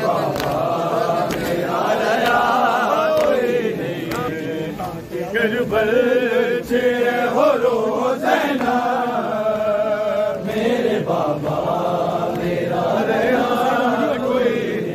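Men's voices chanting a Shia noha lament together, a sustained, melodic mourning chant that dips briefly about five seconds in.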